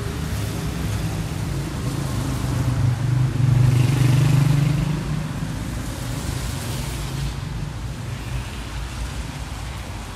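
A car driving past, its engine and tyre noise growing to a peak about four seconds in and then fading away.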